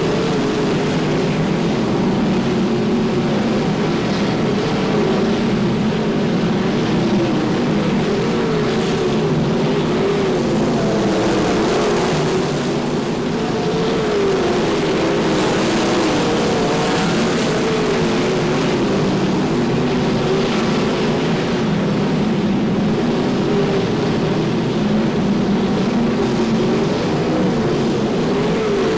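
Sprintcars' V8 engines racing flat out on a dirt oval, a loud continuous engine sound with a pitch that keeps wavering up and down as the cars lift and accelerate through the turns.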